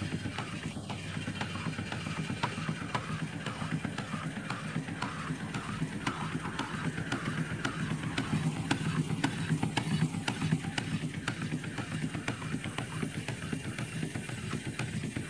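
Small twin-cylinder steam engine of a steam speeder running steadily with a rapid, even beat, on about 40 psi of boiler pressure and not yet fully warmed up.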